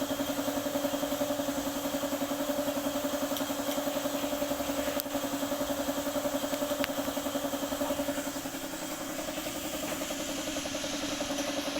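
Daihatsu Taft GT diesel engine idling steadily with an even pulsing beat, easing slightly in level about two-thirds of the way through.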